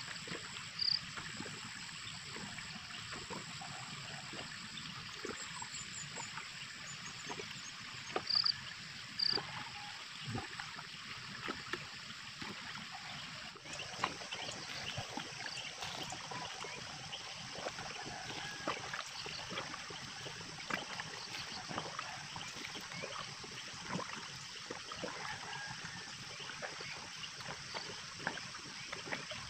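Steady outdoor hiss like running water, with scattered light ticks and rustles and a few short high chirps in the first third.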